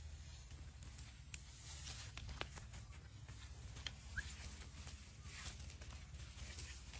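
Faint, scattered wet clicks and crackles of a Komodo dragon tearing at a pig in mud, over a steady low rumble, with one brief chirp about four seconds in.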